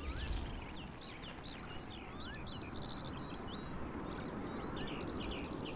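Several songbirds chirping and singing at once: quick high chirps, short rapid trills and a few rising whistles, over a steady low background of outdoor ambience.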